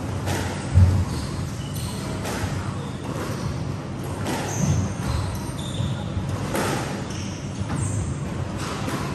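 Squash rally: the ball struck by racquets and cracking off the court walls every second or two, with shoes squeaking on the wooden floor. A heavy low thump about a second in is the loudest sound.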